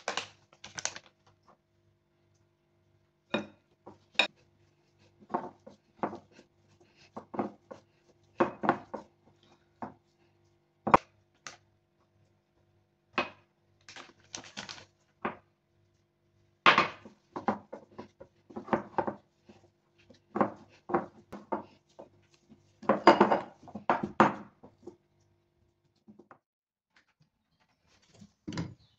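Dough being mixed by hand in a ceramic bowl: irregular knocks, clinks and short scraping rubs of the bowl against the stone countertop.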